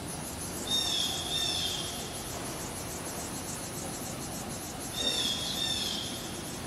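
X-axis drive of a YCM Supermax XV1020A vertical machining center, fitted with a brand-new ball screw and nut, traversing the table. It gives two high whines of about a second each, one about a second in and one about five seconds in, each dropping slightly in pitch as the move ends, over a steady low machine hum.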